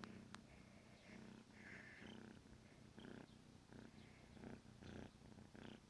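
A 14-week-old kitten purring: a faint, low rumble that swells and fades with each breath. Two sharp clicks come right at the start.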